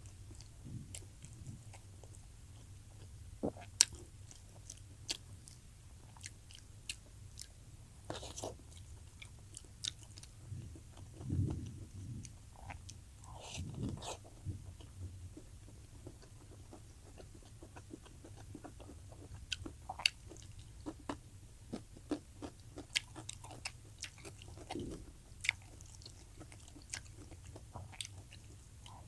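A person chewing a mouthful of food close to the microphone, with many sharp wet mouth clicks and lip smacks and a few longer, louder chewing swells.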